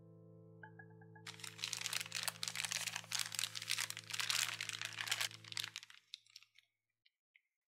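Clear plastic piping bag crinkling and crackling as hands gather and twist it around the custard, from about a second in until near the end, when it stops. Soft piano notes die away underneath.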